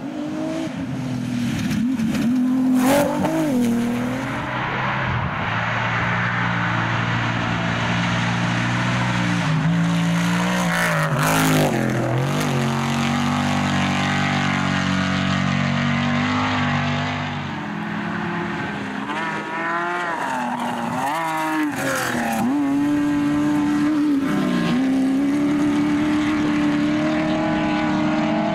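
Off-road race buggy and trophy-truck engines revving hard as they pass, their pitch climbing and dropping over and over.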